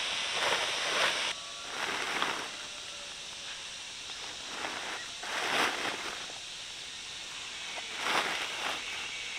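Rustling in vegetation, a handful of short scuffing bursts like footsteps or handling of leaves, over a steady outdoor hiss.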